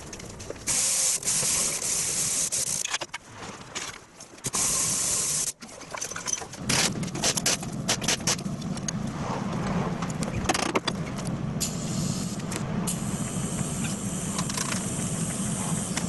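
A compressed-air blow gun hissing in several short blasts, then after a pause a steady low mechanical running sound with scattered clicks and knocks.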